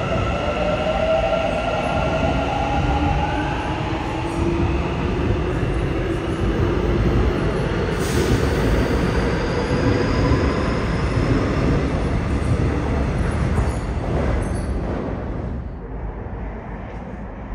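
Seoul Subway Line 7 electric train pulling out of the station. The wheels and cars rumble while the traction motors whine, rising in pitch as it accelerates, and the sound falls away near the end as the train leaves.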